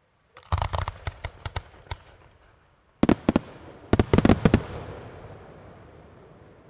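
Aerial firework shells bursting in quick succession. A rapid string of bangs starts about half a second in, then two louder clusters of sharp reports come about three and four seconds in, followed by a long echoing rumble that slowly dies away.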